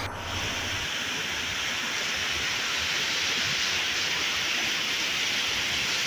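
Water of a waterfall rushing and cascading over rocks: a steady, even rush.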